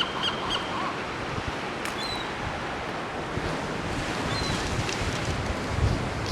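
Steady wash of ocean surf mixed with wind noise on the microphone.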